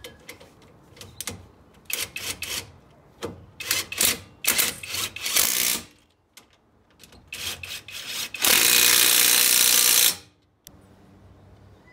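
Ozito cordless impact driver running the brake caliper mounting bracket bolts in with a series of short trigger pulls. Near the end comes one long burst of about a second and a half as the bolts are tightened down.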